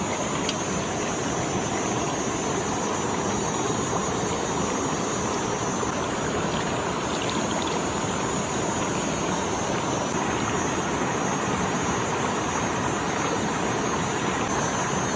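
Shallow, rocky creek rushing steadily over stones, an even unbroken water noise.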